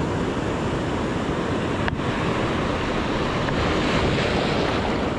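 Surf from a rough winter swell washing and breaking, with wind on the microphone; one short click about two seconds in.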